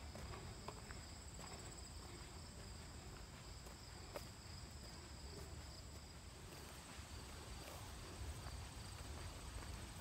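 Insects, such as crickets, trilling steadily in two high-pitched bands, with a few soft footsteps on a grassy trail over a low rumble.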